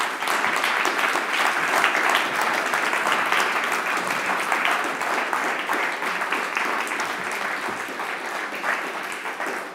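Audience applauding: dense, steady clapping of many hands that eases off near the end.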